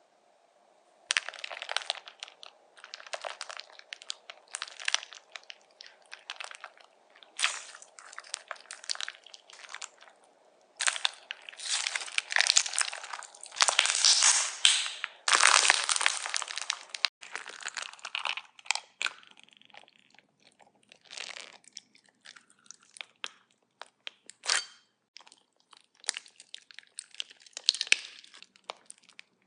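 Crunchy slime packed with plastic block beads being squeezed and worked by hand, giving clusters of sharp crunching crackles that start about a second in and are densest around the middle.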